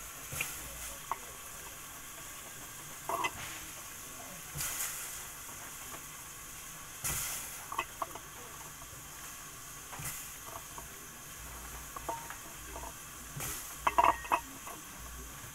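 Slices of green vegetable dropped by hand into a metal pot of heating water: scattered short splashes and clinks against the pot over a steady faint hiss, with a louder cluster near the end.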